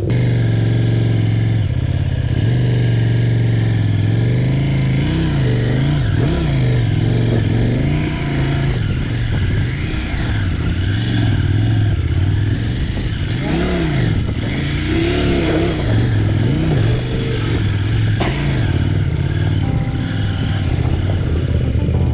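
Adventure motorcycle engine running under way, its revs rising and falling again and again as the throttle is worked.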